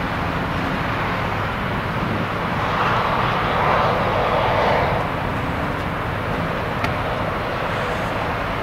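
Steady motorway traffic noise of tyres and diesel engines, swelling as a heavy truck passes from about two and a half to five seconds in, then easing back.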